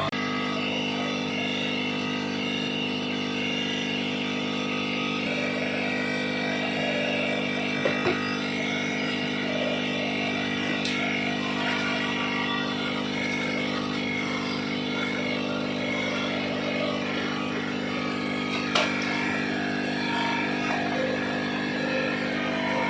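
A steady mechanical hum, like a small motor or fan running, with two short clicks, one about a third of the way in and one near the end.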